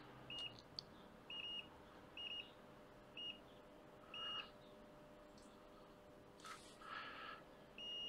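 Digital multimeter giving short high beeps as its test probes touch the small components on a PS5 circuit board: five quick beeps over the first four seconds and another at the end, with faint scrapes of the probe tips.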